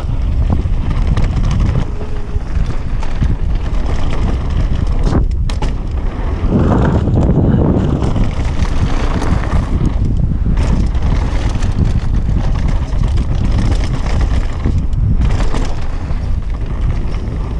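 Wind buffeting a ride-mounted camera's microphone over the steady rumble of mountain-bike tyres on a dry dirt trail at speed, dropping briefly a few times.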